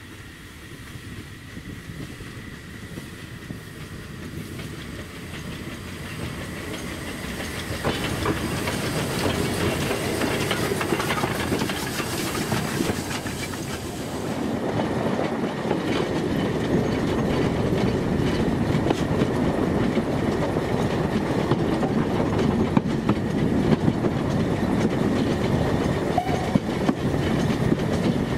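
Narrow-gauge steam locomotive 99 582 coming closer, its running noise growing steadily louder. About halfway through, this gives way to the sound from aboard a moving narrow-gauge train: steady clickety-clack of the wheels over rail joints.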